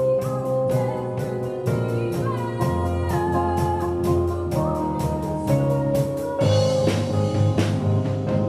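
Live band music: a Kawai ES6 keyboard playing sustained chords over a drum kit's steady beat and bass guitar, with a girl singing into a microphone.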